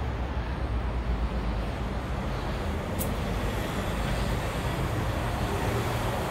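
Road traffic noise from a busy city street: a steady rumble of passing cars and vans, with one short sharp click about three seconds in.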